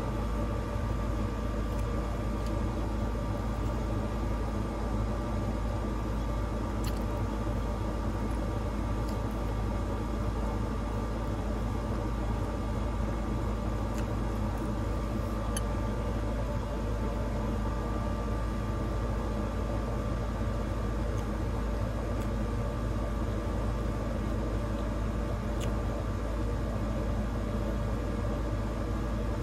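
Steady mechanical hum: a constant low drone with a faint steady whine above it, and a few faint clicks here and there.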